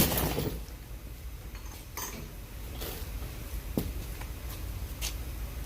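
A loud metal clank with a short ring, then a few light metallic clinks spaced about a second apart, from wrench, socket and strut-mount hardware being handled.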